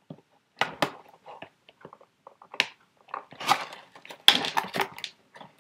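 Cardboard toy box being handled and pried open by hand: irregular scrapes, taps and crackles of the packaging, busiest and loudest about four seconds in.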